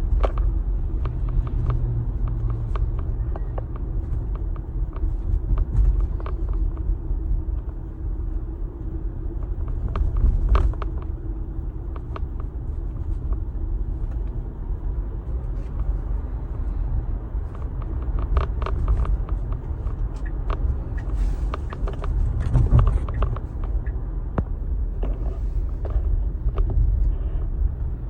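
Steady low road rumble from a Tesla being driven, heard inside the car, with scattered small clicks and knocks.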